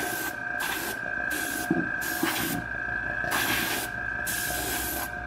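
Airbrush hissing in short spurts, on and off about every second as the trigger is pressed and let go, over a steady high whine.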